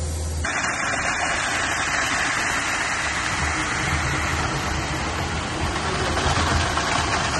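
Concrete mixer truck's diesel engine running steadily while concrete is discharged down its chute into a drilled footer hole.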